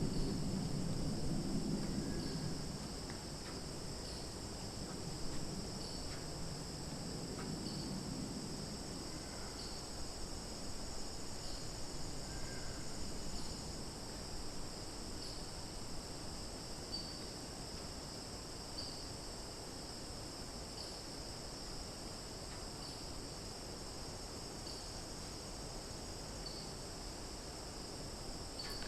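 A steady summer chorus of crickets and cicadas, high-pitched and unbroken, with a short chirp repeating about every two seconds. A low rumble sits under it for roughly the first eight seconds, then fades.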